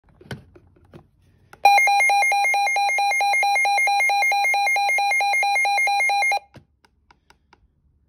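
Midland weather radio sounding its alert-test alarm: a loud, rapidly pulsing beep, about six pulses a second, that lasts about five seconds and cuts off suddenly. A couple of faint clicks from its buttons being pressed come before it.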